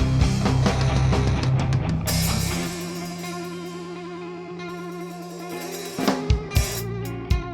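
Instrumental rock band playing drums and electric guitar. The drums drop out about two and a half seconds in, leaving held guitar notes with a wavering vibrato, and heavy drum hits come back near the end.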